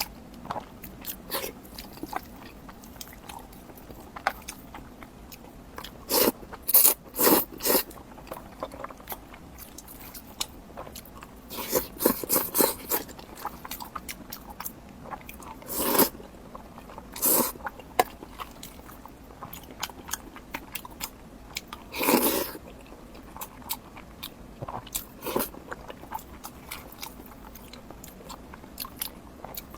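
Close-miked eating: bites and crunchy chewing in irregular bursts, with the loudest crunching clusters about six to eight seconds in, around twelve seconds, sixteen to eighteen seconds and twenty-two seconds.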